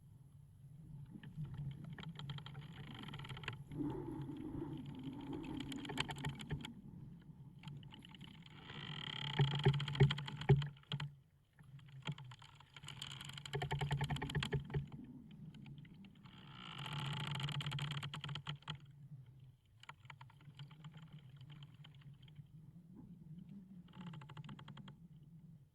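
Wooden ship's timbers creaking in about six drawn-out groans of dense fine clicks, each a second to three long, over a steady low rumble. A few sharp knocks about ten seconds in are the loudest part.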